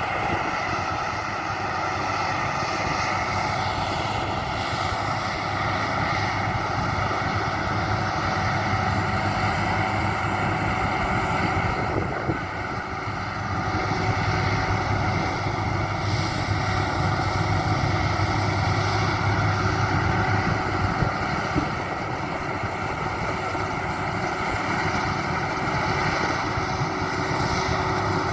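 Maxxi Bimo 102 rice combine harvester running steadily, its engine and working machinery making a continuous drone.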